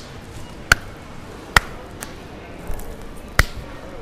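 Slow, steady hand claps, one sharp clap a little more than once a second.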